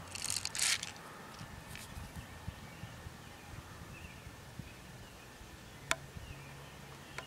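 Footsteps swishing through lawn grass in the first second, then a quiet backyard with faint insects, and a single sharp click about six seconds in as the pellet gun is raised to aim.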